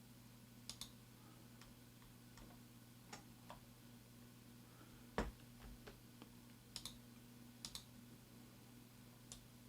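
Faint computer mouse and keyboard clicks, several in quick double-click pairs and a few single taps, one a little louder about five seconds in, over a low steady hum.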